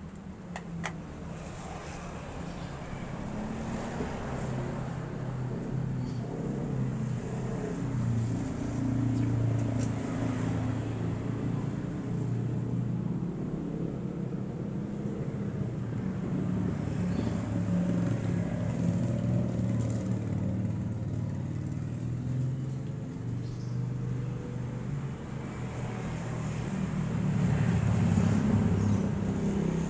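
Motor vehicle engines running, a low rumble that swells and fades as traffic passes, loudest near the end.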